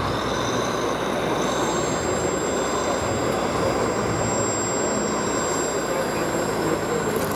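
Radio-controlled model tractor and dump trucks running, heard as thin, high electric-motor whines over a steady rushing din.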